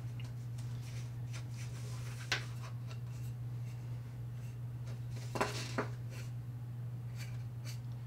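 Fingers handling a small aluminium USB-C hub on a tabletop: a few light taps and clicks, once about two seconds in and a couple more past the middle, over a steady low hum.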